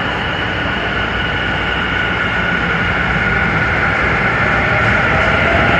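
Tōbu 50070-series electric commuter train pulling out of an underground station and accelerating: its traction motors give a steady whine over the rumble of wheels on rail. Near the end a lower motor tone starts rising as the train gains speed.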